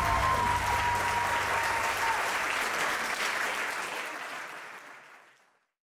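A crowd applauding, the clapping fading out to silence about five seconds in.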